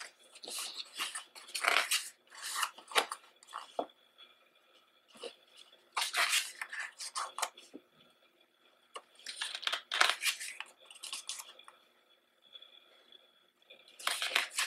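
Pages of a glossy album photo book being turned and handled, the paper rustling in about four bursts with short quiet gaps between.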